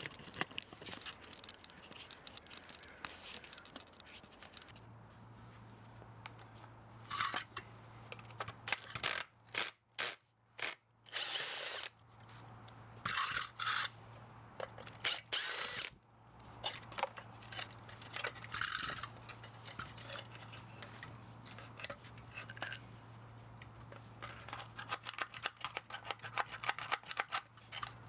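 Handheld power tool run in short bursts of a second or two, several times, amid clinks and rattles of metal parts of an electric motor being handled.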